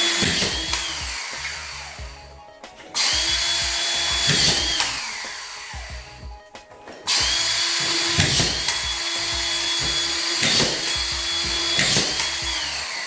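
Makita collated drywall screw gun running at a steady high whine in three runs, its pitch dipping briefly each time a screw is driven home through plasterboard into a timber stud, about five screws in all.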